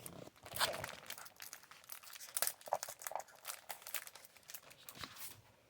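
Scrapbook paper pack and sticker sheet being handled, its packaging crinkling in irregular crackles.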